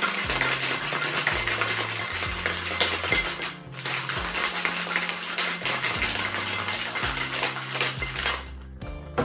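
Ice rattling hard inside a stainless-steel tin-on-tin cocktail shaker, shaken to chill the drink, with a brief break about three and a half seconds in; the rattle stops about eight and a half seconds in. Background music runs underneath.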